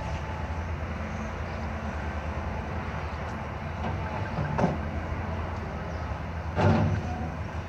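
Cat wheeled excavator's diesel engine running steadily, with two louder clunks as the bucket works the broken asphalt, one past the middle and one near the end.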